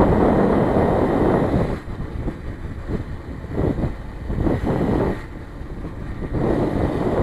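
Wind buffeting the microphone of a rider-mounted camera on a moving BMX bike, a loud, low rumbling rush. It eases off briefly about two seconds in and again for a second or so past the middle.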